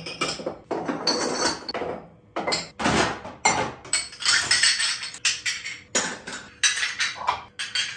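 Dishes and glasses knocking and clinking as they are handled and lifted out of a dishwasher rack, in quick uneven knocks with a brief pause about two seconds in.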